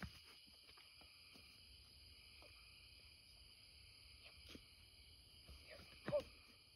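Quiet night insect chorus: crickets and katydids trilling steadily at several high pitches, with faint rustles and ticks of movement through weeds and a brief pitched sound about six seconds in.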